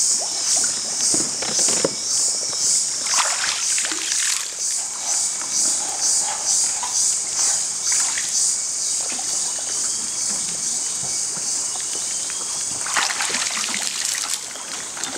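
Bamboo pole dipping into deep water and splashing now and then as a bamboo raft is poled along, over a loud, high, evenly pulsing buzz that fades out near the end.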